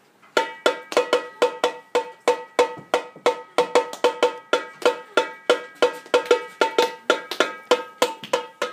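Percussive music: one pitched note struck or plucked over and over in an even rhythm, about three times a second.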